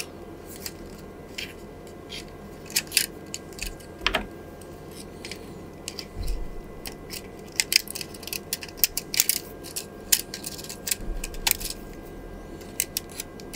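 Small, irregular clicks and ticks of tweezers and plastic parts as an opened ROCCAT Kain 202 mouse is taken apart, its circuit board being worked loose from the shell.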